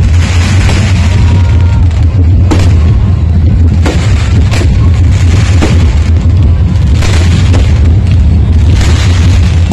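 Aerial fireworks going off in quick succession, very loud. Sharp bangs come about every half second to a second over a continuous low booming rumble.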